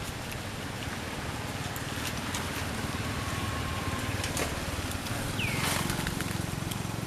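Outdoor ambience: a steady noisy background with a low rumble that grows slightly louder, a few scattered clicks, and one short high squeak that slides down in pitch about five and a half seconds in.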